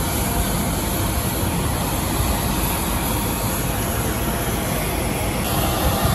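Steady airport apron noise: the drone of jet aircraft and their auxiliary power units, with a low rumble underneath and a hiss that thins a little near the end.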